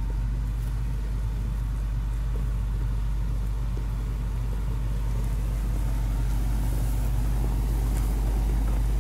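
Caterpillar 140K motor grader's six-cylinder diesel engine running steadily under load as it pushes crushed rock with its blade, growing gradually louder as the machine approaches.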